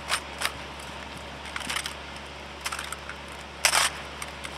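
Drill rifles being handled by a platoon: scattered sharp clicks and slaps of hands striking the rifles, with one louder clatter about three and a half seconds in.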